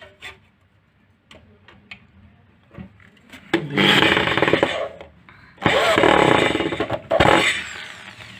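Corded electric drill fitted with a screwdriver bit, driving a screw into a wooden board in three runs of about a second or more each, the second and third close together. Before the first run there are a few light clicks of the screw and bit being set in place.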